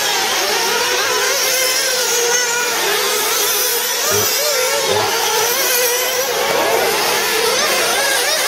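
Several 1/8-scale 4x4 RC buggies' small nitro engines racing, their high buzzing pitches overlapping and constantly rising and falling as they rev and back off around the track.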